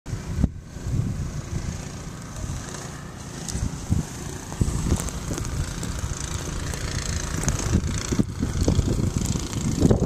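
Blizzard wind buffeting the microphone: a gusty low rumble that swells and eases, with a few light knocks.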